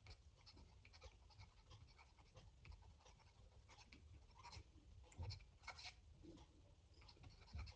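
Near silence with faint, scattered taps and scratches of a digital pen writing on a tablet, a few slightly louder ones about five seconds in.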